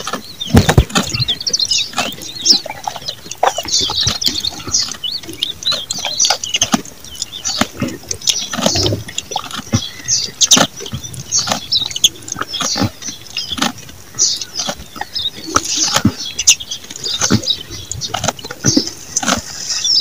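A goat chewing close up: irregular crunches and clicks of its jaws and teeth.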